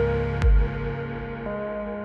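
Background electronic music: sustained synth chords, with a deep bass hit about half a second in and a chord change near the end.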